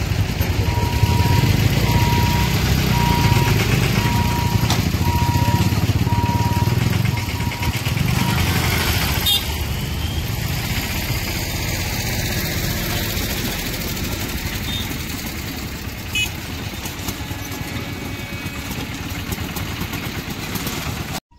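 Road traffic crossing a railway level crossing: motorcycle and small tractor engines running as they pass, loudest in the first eight seconds and then easing off. A short electronic beep repeats about once a second for roughly the first seven seconds.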